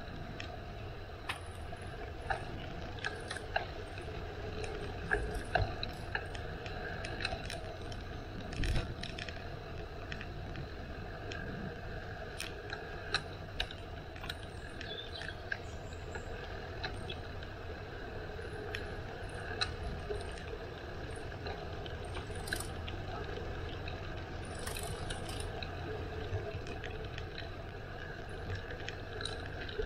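Bicycle parts clicking and rattling irregularly over a steady low rumble.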